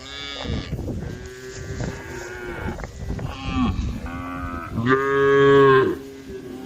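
Several cattle mooing one after another, calls overlapping, with the loudest and longest moo about five seconds in: cows calling to the herd.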